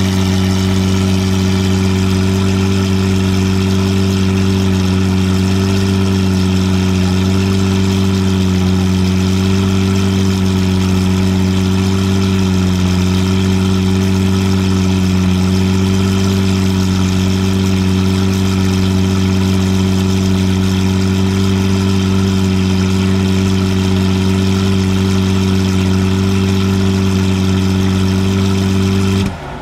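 Lamborghini Murciélago V12 idling steadily at its exhaust tips, holding an even, unchanging pitch with no revving.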